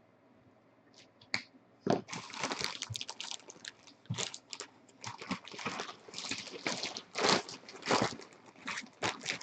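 Trading card pack wrappers and packaging crinkling and rustling as they are handled and opened, in irregular crackling bursts starting about two seconds in.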